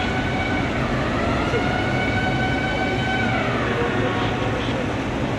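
A siren's pitched wail glides up about a second in, holds, then falls away a little past the middle, over steady background noise.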